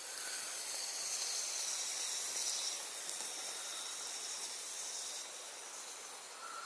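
Steady hissing from a Bushbox XL wood stove fire burning under a titanium cup of water being brought to the boil. It is loudest in the first few seconds and eases slightly later on.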